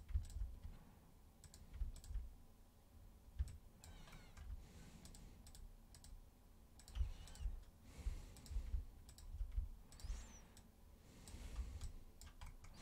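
Faint, irregular clicks of a computer mouse and keyboard, a few to several a second, with soft low thumps from the desk.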